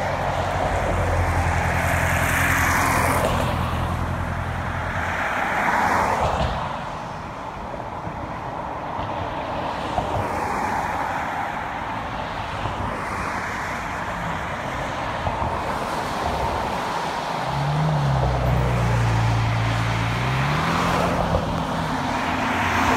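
Road traffic: cars passing one after another, each swelling and fading. A low engine hum runs through the first few seconds, and near the end an engine note rises and falls.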